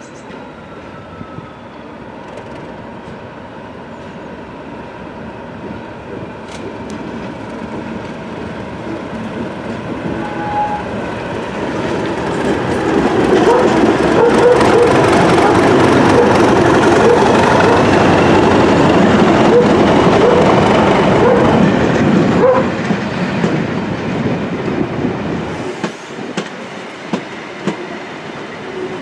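Class 37 diesel locomotive with its English Electric V12 engine hauling a test train past, getting louder as it approaches and loudest as it goes by around the middle. The coaches then roll past, with regular wheel clicks over the rail joints near the end.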